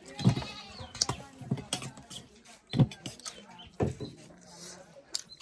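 A goat bleats once, a short wavering call right at the start. Scattered clicks and knocks follow, the loudest a dull thump about three seconds in.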